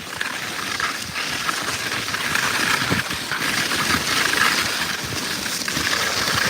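Skis gliding fast over snow on a downhill run: a steady rushing hiss that grows louder over the first couple of seconds and then holds.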